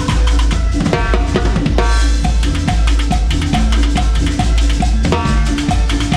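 Live cumbia band playing, with the drum kit loud and up front: kick drum, snare and rimshots keeping a steady beat over bass and other pitched instruments.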